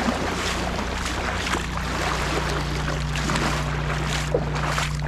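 Shallow water splashing and washing over a rocky bar, with wind on the microphone, as a steady noise without pauses.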